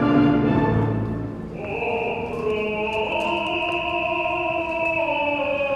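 Background music: slow, sustained operatic or choral voices over held chords, with a high held note entering about a second and a half in.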